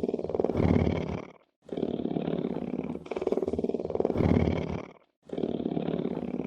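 A big cat purring: a deep, fluttering rumble that comes in paired breaths, a steadier one and then a louder one. Each pair lasts about three and a half seconds, with a short silent break between pairs about a second and a half in and again about five seconds in.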